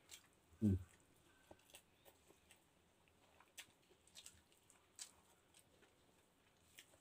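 Close-miked chewing of stir-fried pancit noodles eaten by hand: scattered wet mouth clicks and smacks. There is one louder low thump about a second in.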